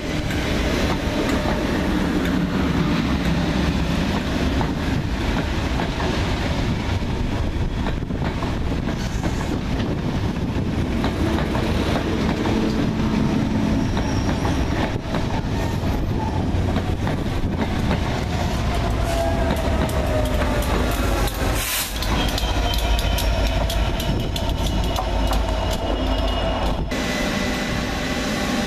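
Loco-hauled passenger train of Mk3 coaches passing close by at the platform: a steady rumble of wheels on rail. In the second half come rapid wheel clicks over the rail joints and gliding whines.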